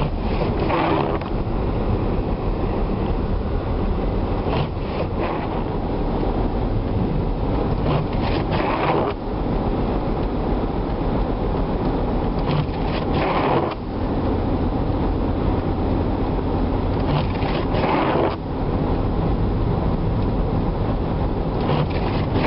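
Steady drive noise of a Ford four-wheel-drive vehicle heard from inside the cabin as it travels through blizzard snow, with a brief whooshing surge every four or five seconds.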